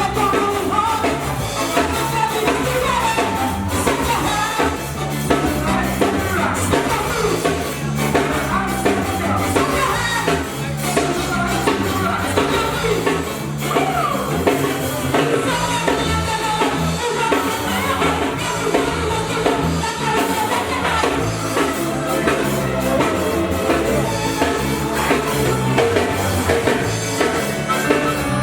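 Ska band playing a song, with singing over a drum kit and a bass line that steps from note to note.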